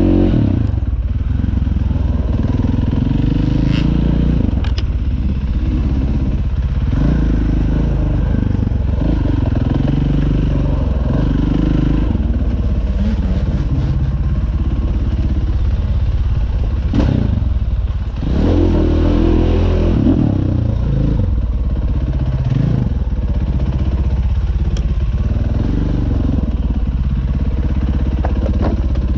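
Dirt bike engine running under load on a rough trail, the revs rising and falling in steps as the rider works the throttle and gears, heard close up from the bike. A few sharp knocks break through as it rides over bumps.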